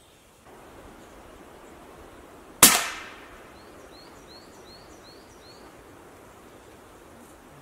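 A single shot from a scoped air rifle fired from the prone position, a sharp crack about two and a half seconds in that dies away quickly.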